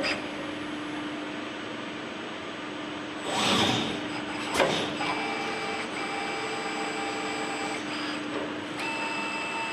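CNC machine running, its drive motors giving steady whining tones that start, stop and shift pitch as the machine moves, over a constant hum. There is a short whoosh a little over three seconds in and a sharp click soon after.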